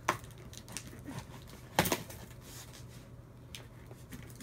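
A key slitting the packing tape along the seam of a cardboard shipping box: scattered scrapes and small clicks, with one sharp knock a little under two seconds in.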